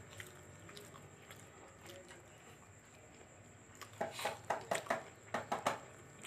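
A person chewing food close to the microphone: quiet at first, then about four seconds in a quick run of about ten sharp smacking mouth clicks over nearly two seconds.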